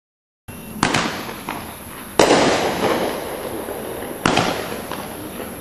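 Consumer firework cake, a Firehawk 'Star Quake' 12-shot repeater that shoots flaming balls with report, firing its shots. There are three loud bangs, the loudest about two seconds in, with a smaller pop between the first two. Each bang trails off slowly.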